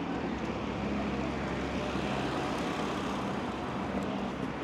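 City street traffic, with a motor vehicle's engine running steadily close by as a low hum over road noise.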